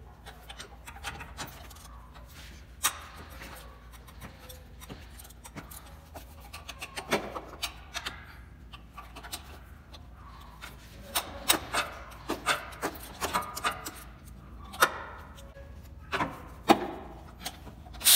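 Hand tools working on bolts in a car's engine bay: irregular metal clicks and clinks with some rubbing and scraping, the clicks coming quicker past the middle.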